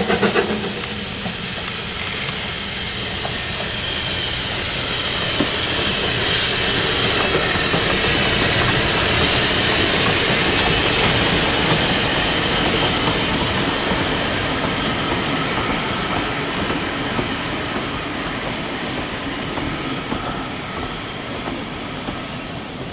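Narrow-gauge steam train passing and drawing away: the locomotive's exhaust beats at the very start give way to the steady rumble and clatter of the coaches rolling by, loudest midway and fading towards the end.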